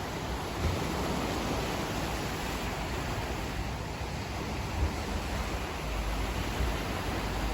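Steady rushing noise of sea surf and wind, with a few low gusts of wind on the microphone, heavier from about six seconds in.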